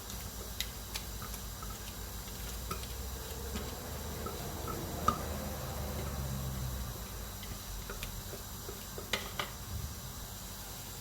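A blended pepper and sesame-seed mixture being poured and emptied into a cooking pot, with a few light clinks of the container against the pot.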